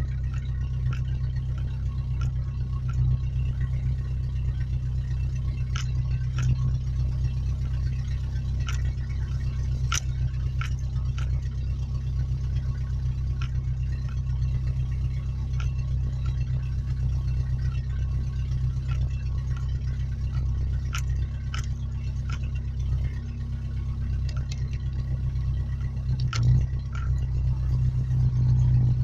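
Truck running, a steady low rumble with scattered sharp clicks and rattles, louder near the end.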